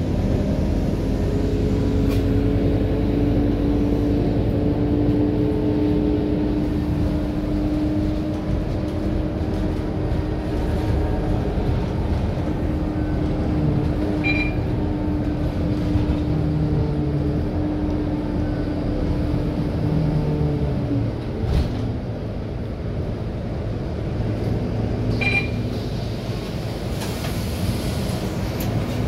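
Cabin noise of a Scania K230UB single-decker diesel bus under way: a steady engine and drivetrain rumble with a whine whose pitch drifts slowly. A few short high beeps sound about 14 and 25 seconds in.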